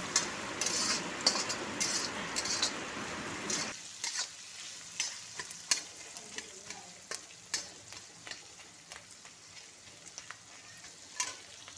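Sliced onions and dried red chillies frying in hot oil in a kadhai, sizzling while a steel spatula stirs them, scraping and clicking against the pan. The onions are being fried until they turn red. The sizzle drops off suddenly about four seconds in, leaving a fainter hiss under the spatula's clicks.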